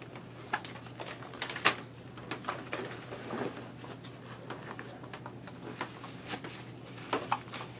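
Faint, scattered light clicks and rustles, irregularly spaced, the sharpest about a second and a half in, over a steady low hum.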